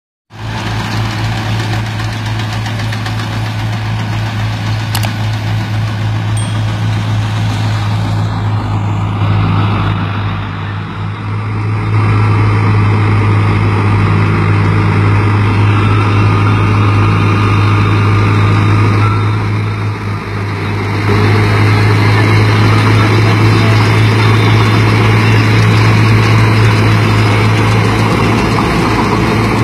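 Massey Ferguson 385 tractor's four-cylinder diesel engine running steadily under load, driving a tractor-operated wheat straw reaper (chopper). The drone holds steady, with two brief dips in level about ten and twenty seconds in.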